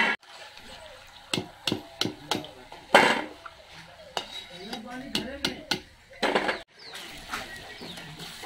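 Steel slotted spoon clinking and scraping against a steel kadai and a steel plate as fried koftas are lifted out of the oil, a series of sharp clinks over the first six seconds. Near the end, hot oil sizzles steadily as fresh balls fry.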